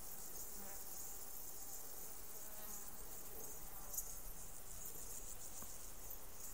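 Insects chirring steadily in a high, pulsing band, with a single sharp tick about four seconds in.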